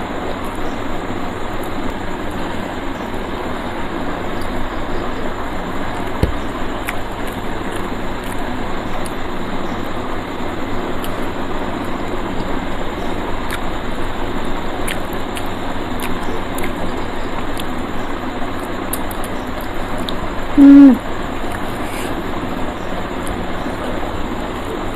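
A person eating by hand close to a clip-on microphone: faint chewing and mouth clicks over a steady background hiss, with one short, loud hummed "mm" about 20 seconds in.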